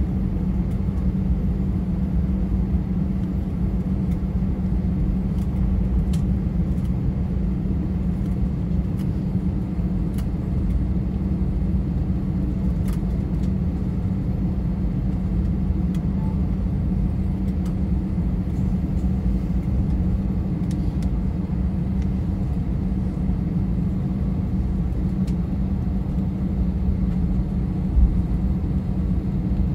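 Airliner cabin noise while taxiing after landing: the jet engines at idle and the rolling wheels make a steady low rumble, heard from inside the cabin, with a small knock near the end.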